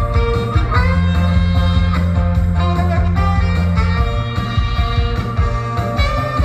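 Saxophone playing a Korean pop melody over band accompaniment with guitar, bass and a steady beat.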